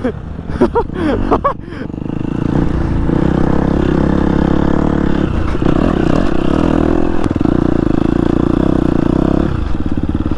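Husqvarna FC 250 four-stroke single-cylinder dirt bike engine heard from the rider's helmet: the revs rise and fall a few times in the first two seconds, then the engine holds a steady high-rev pull under load. Near the end the throttle closes and it drops to a lower, pulsing note.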